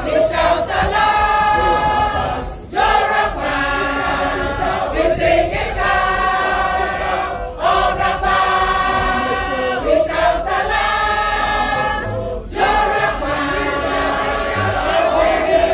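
Group of men and women singing a school anthem together, in long held phrases of about five seconds with short pauses for breath between them.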